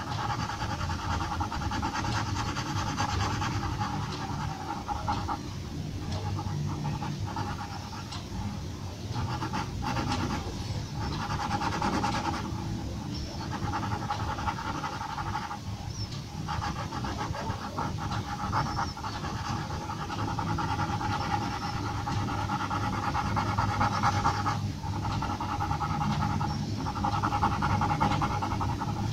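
Graphite pencil scratching on paper in rapid, short hatching strokes, with brief pauses every few seconds as the pencil lifts.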